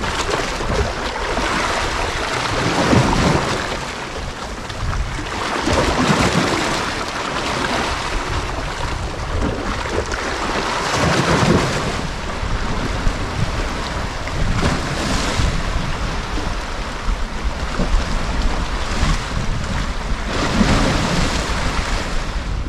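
Small estuary waves washing in over a rocky shore, surging every few seconds, with strong wind buffeting the microphone as a steady low rumble.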